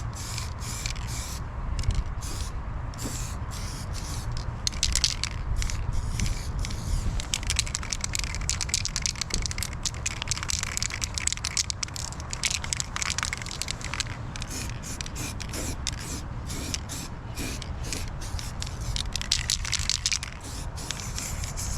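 Spraying hiss in irregular spurts of varying length, over a steady low rumble.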